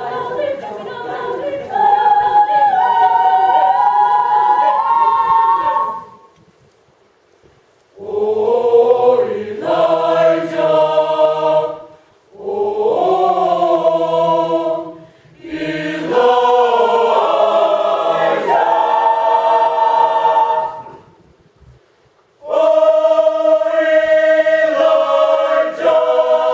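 Mixed choir of men's and women's voices singing unaccompanied, in loud phrases broken by pauses: a silence of about two seconds after the first phrase and another of over a second near the end.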